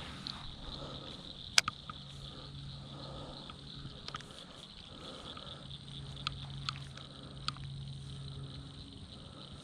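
A steady high-pitched buzz with a low hum underneath, broken by a few sharp clicks or knocks; the loudest click comes about a second and a half in.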